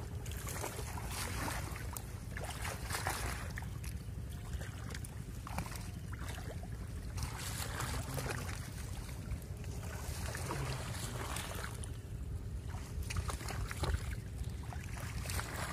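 Wind rumbling steadily on the microphone, with irregular rustling of water hyacinth leaves and sloshing of hands groping through shallow, muddy pond water.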